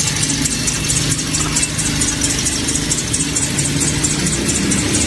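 Toyota Vios engine idling while its serpentine accessory-drive belt squeaks in a fast, even chirp ("két két két"). The squeak comes from a worn, hardened belt that is due for replacement.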